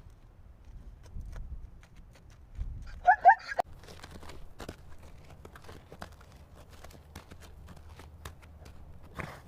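Zebra giving two short, loud barking calls in quick succession about three seconds in, against a low background rumble with scattered light clicks and rustles.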